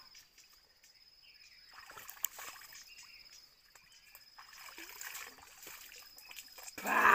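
Faint trickling and dripping of shallow river water as a person wades and scoops it up with cupped hands, then a short splash near the end as a handful is thrown onto the face.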